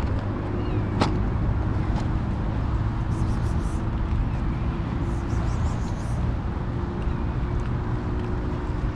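Steady low rumble of road traffic with a faint held engine hum. A couple of sharp clicks come about one and two seconds in, and short high chirps come around three and again around five to six seconds.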